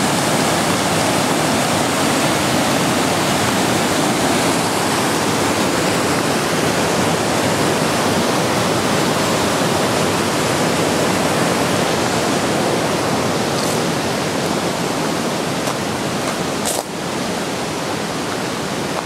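Steady rushing of the Kurdzhips mountain river far below. A brief click comes near the end, after which the rushing is slightly quieter.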